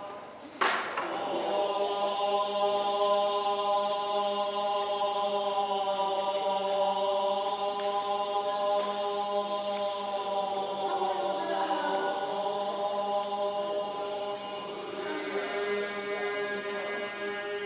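Buddhist monks chanting in unison on a steady, held pitch. There is one sharp strike with a ringing tail about half a second in, and a faint clatter of offerings dropped into the temple's offering box in the background.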